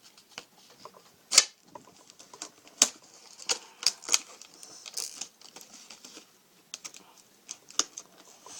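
Plastic retail packaging being handled and pried at, giving irregular sharp clicks and crackles, a few of them louder.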